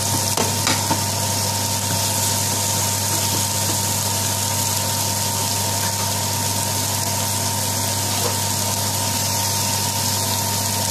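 Sliced onions sizzling in hot vegetable oil in a frying pan, a steady hiss with a low hum underneath. A spoon knocks against the pan a couple of times in the first second.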